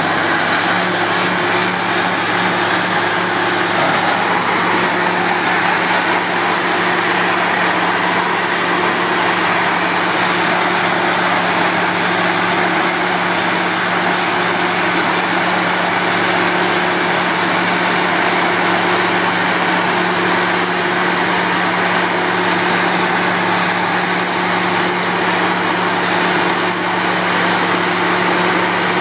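Truck-mounted water-well drilling rig running with a steady, loud engine drone over a constant rushing hiss, as compressed air blows water and cuttings up out of the borehole: the drill has struck water.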